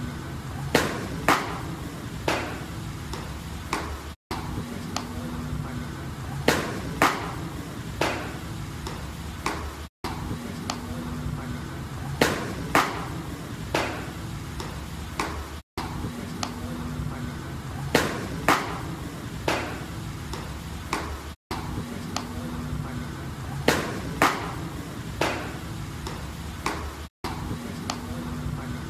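Fastballs smacking into a catcher's mitt: sharp pops in pairs about half a second apart, with a weaker pop a second later, the pattern repeating about every six seconds.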